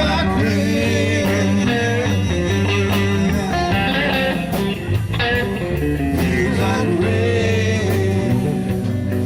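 Slow blues-rock song played on guitar with band backing, an instrumental passage between sung lines.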